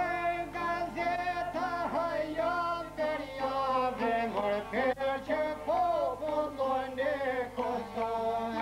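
Male folk singing with a wavering, ornamented voice that glides between notes, accompanied by steady plucking on long-necked lutes.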